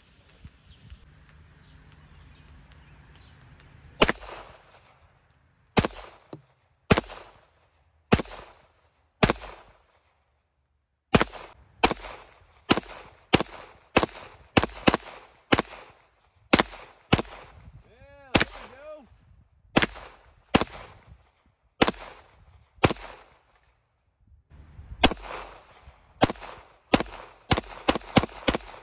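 Semi-automatic handgun fired one shot at a time, starting about four seconds in: sharp cracks with a short echo, about one to two a second with brief pauses, coming quicker near the end.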